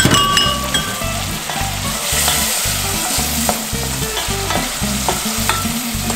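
Chopped cherry tomatoes sizzling in hot olive oil with a soffritto of onion, carrot and celery in a stainless steel pot, stirred with a wooden spoon that knocks against the pot. A clink with a short ring comes just after the start.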